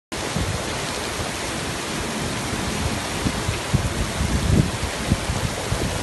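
Heavy rain pouring onto pavement in a steady, loud hiss, with strong wind gusting against the microphone in uneven low buffets that grow stronger in the second half.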